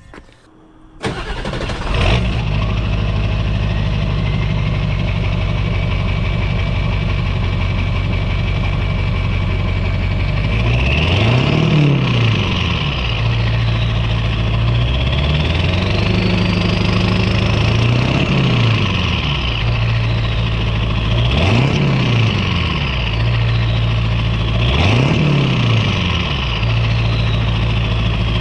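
Ford 7.3L Powerstroke turbo-diesel V8 with a new 5-inch MBRP turbo-back exhaust, starting about a second in and settling into an idle with a steady turbo whistle. It is then revved four times, each time rising and falling with the turbo whistle sweeping up and back down.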